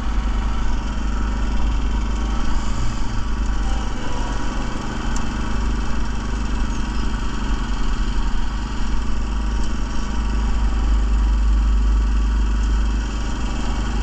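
Small gas engine of a walk-behind line-striping machine running steadily at constant speed.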